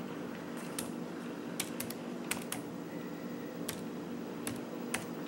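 HP laptop keyboard keys clicking as a password is typed: about ten unevenly spaced keystrokes over a faint steady hum.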